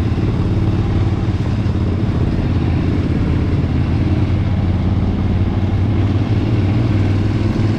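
KTM 990's V-twin engine through its stock exhaust, running steadily at an even pitch with no revving.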